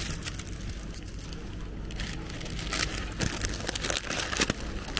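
Crinkling, crackly rustling, as of plastic or paper being handled, which grows busier from about two seconds in. A steady low hum runs underneath.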